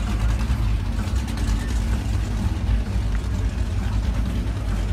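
Performance powerboat engines idling, a steady deep rumble.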